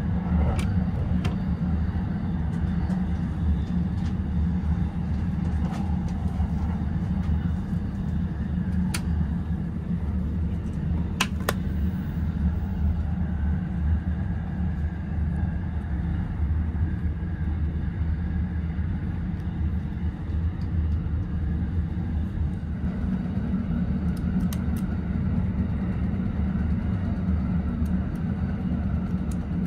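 Steady low rumble of a moving double-decker train car heard from inside the passenger cabin, with a few sharp clicks, the loudest about eleven seconds in.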